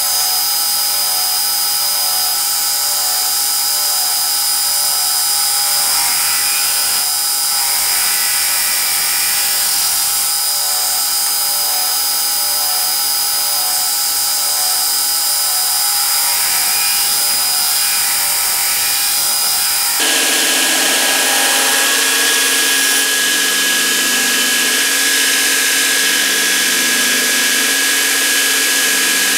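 Steady drone of a running machine motor. It changes abruptly to a different pitch about twenty seconds in.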